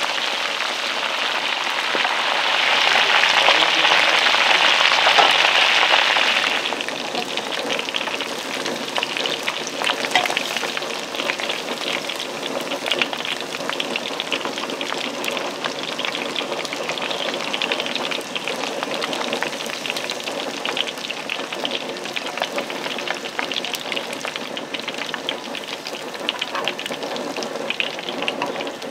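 Food deep-frying in hot oil: a dense crackling sizzle that is louder for a few seconds near the start, then settles into a lighter, steady crackle.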